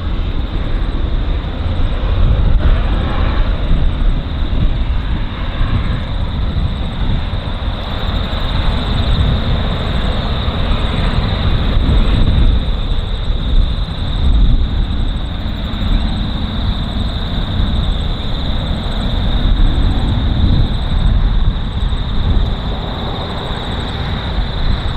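Steady low rumble of a distant freight train's diesel locomotives approaching, with a steady high-pitched hum above it.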